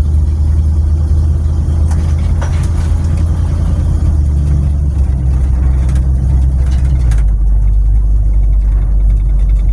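Old Jeep's engine and drivetrain droning steadily inside a bare, unsound-deadened cabin with holes in the floor, a strong low rumble. About seven seconds in, the drone drops lower and the hiss above it fades.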